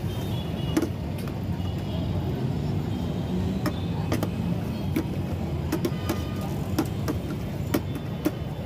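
Steel ladle clinking now and then against stainless-steel pots as paye is served, over a steady low rumble of roadside traffic.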